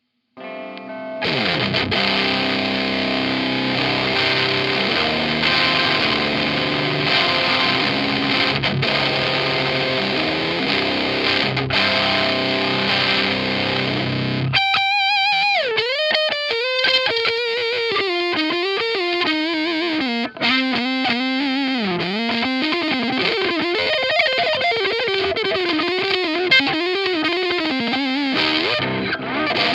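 Electric guitar played through a Zander Circuitry Terra Firma fuzzy power-amp-style distortion pedal. For about the first half a distorted chord rings and is sustained. After that comes a single-note lead line with wavering, bending notes.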